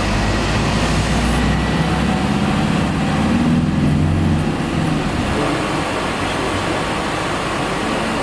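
Engine and road noise from a van on the move. The engine's pitch climbs about three seconds in, then drops back a second later, as with acceleration and a gear change.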